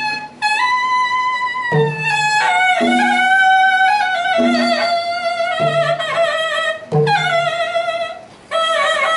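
Pi nai, the Thai double-reed oboe, playing a slow solo melody of long held notes that slide and waver between pitches. A barrel drum beneath it gives a low stroke every second or so. The line breaks briefly near the end.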